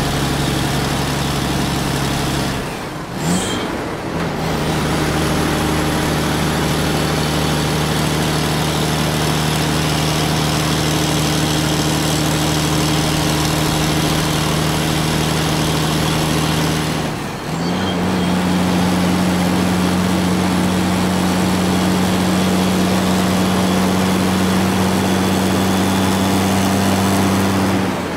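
A heavy truck engine running steadily at a constant pitch, cut off abruptly about 3 seconds in and again about 17 seconds in, each time coming back at a different pitch, higher after the second break. It is an engine recording dubbed over unpowered toy trucks, not a sound they make themselves.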